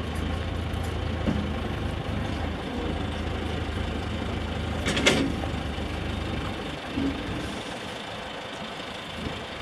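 Diesel engines running, chiefly a backhoe working under load as it pulls a steam locomotive off a lowboy trailer. A steady low engine hum weakens a little after halfway, with a short sharp noise about five seconds in.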